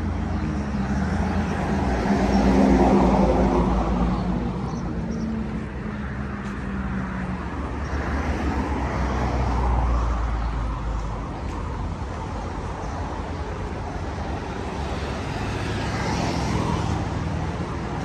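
Road traffic on a multi-lane street: motor vehicles passing, with a low engine hum in the first several seconds and the noise swelling as cars go by about three seconds in, around ten seconds in, and again near the end.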